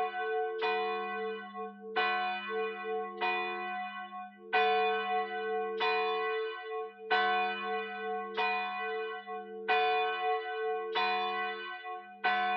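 Church bells ringing, one strike about every second and a quarter, each strike ringing on and overlapping the next.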